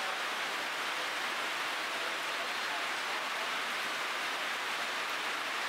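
Steady heavy rain falling on foliage and stone, an even hiss with no let-up.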